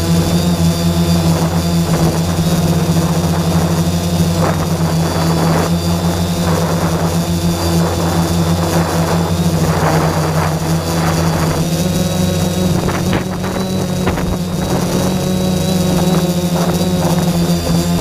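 Quadcopter drone's electric motors and propellers running with a steady hum as it climbs, heard up close from the camera mounted on the drone.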